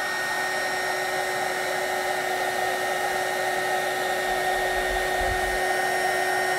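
Hot-air drying tool blowing steadily with a constant whine, drying paint on a craft piece.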